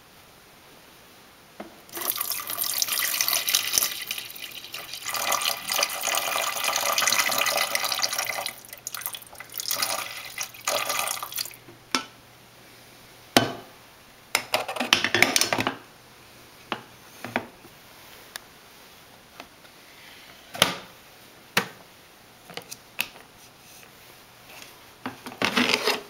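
Water poured from a glass carafe into the water reservoir of a Mr. Coffee FTX41CP coffee maker: a splashing pour lasting about ten seconds with a few short breaks. It is followed by scattered clicks and knocks of handling, and the plastic lid is shut near the end.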